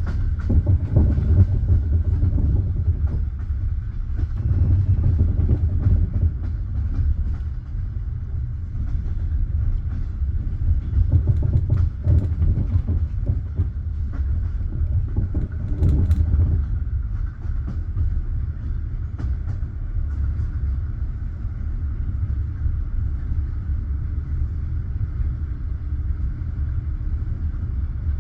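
Passenger train carriage rolling along the track, heard from inside: a steady low rumble of wheels on rail with scattered knocks from rail joints, and a brief cluster of sharper clicks about two-thirds of the way through.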